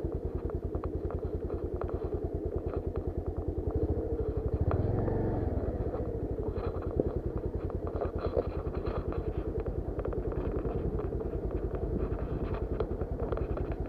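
Motorcycle engine running at low revs with a steady, even pulsing beat, briefly louder about five seconds in, with scattered short knocks and clatter from riding a rough dirt track.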